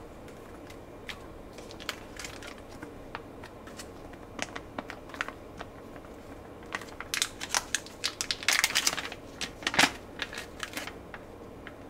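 Holographic mylar foil pouch crinkling and crackling as hands handle and flex it, with scattered crackles that grow denser about seven to ten seconds in.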